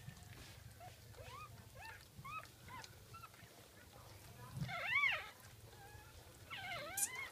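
Newborn Jack Russell puppies squeaking and whimpering: a string of short, high squeaks that rise and fall, with a louder cry about five seconds in and another near the end.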